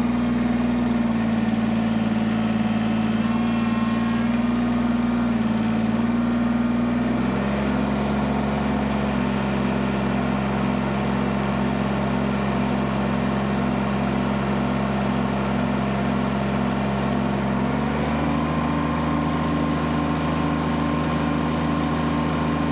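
Kubota BX compact tractor's three-cylinder diesel engine running steadily at high revs, about 3,100 rpm, driving the loader hydraulics at 2,000 psi as the pallet forks lift a heavy load. Its pitch drops slightly about seven seconds in and rises again about eighteen seconds in.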